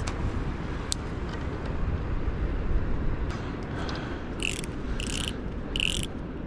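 Fishing reel's drag clicking in three short bursts in the second half, as the drag knob is cranked tight, over a steady low rumble. A single sharp click comes about a second in.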